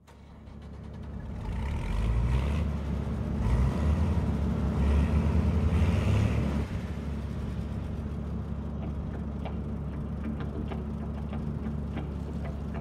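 Diesel engine of a cotton-harvesting farm machine running steadily, with a deep even hum. It fades in over the first couple of seconds, runs louder until about six seconds in, then settles a little lower.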